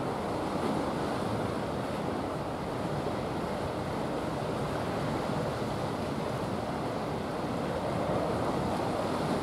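Steady rushing of wind on the microphone mixed with the wash of the sea, even and unbroken, with no distinct engine tone.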